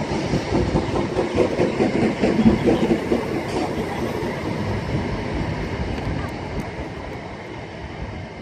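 Class 319 electric multiple unit running into the platform and slowing, its noise fading away as it draws to a stop.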